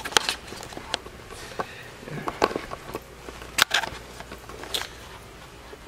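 Footsteps on a bare cement floor: a handful of sharp, unevenly spaced steps.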